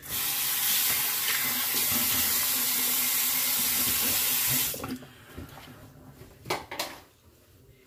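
Bathroom sink faucet running, starting at once and shut off about five seconds in, followed by two brief, quieter sounds shortly after.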